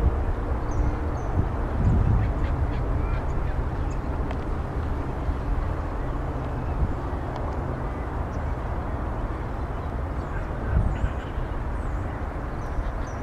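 Wind rumbling and buffeting on the camera's microphone, with faint high bird chirps now and then.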